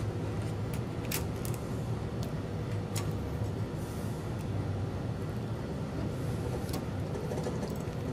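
A few light metallic clicks from a hook tool and coil spring being worked into a steel clutch cage, mostly in the first three seconds, over a steady low hum.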